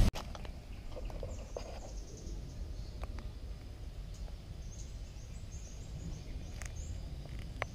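Quiet outdoor ambience with a low background rumble, a few faint ticks, and faint high bird chirps about halfway through.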